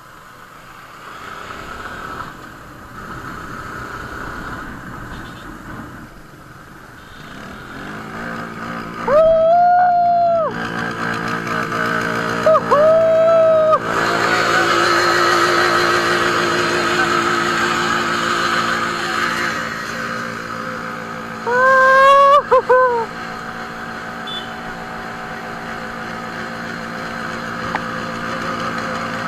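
Several motorcycles running together on a group ride, engines steady under the rider's own bike. Horn honks are the loudest sounds: a long one about a third of the way in, a shorter one a few seconds later, and a quick series of toots about three quarters through.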